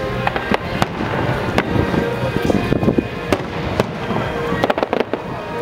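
Fireworks display: a string of sharp bangs and crackles, several coming in quick succession near the end, over background music.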